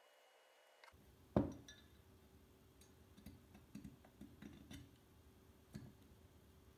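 Small metal parts of a Steyr AUG being handled: one sharp clink about a second and a half in, then a scattering of lighter taps and clicks.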